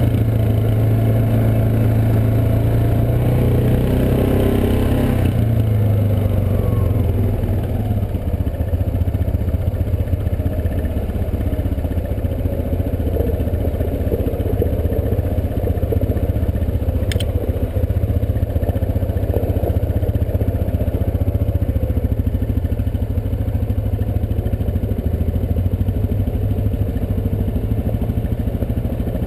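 Yamaha Grizzly 350 ATV's single-cylinder engine running steadily while ridden. The engine pitch is higher at first and drops about five seconds in as the throttle eases. There is a single sharp click about halfway through.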